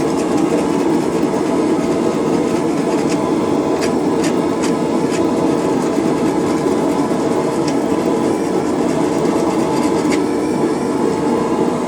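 A running forge makes a steady rushing noise, with a few faint, scattered ticks over it.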